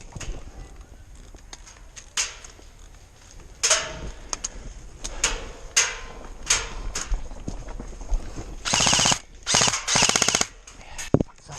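Airsoft guns firing: scattered single shots and short bursts, then two longer bursts of rapid fire about two-thirds of the way through.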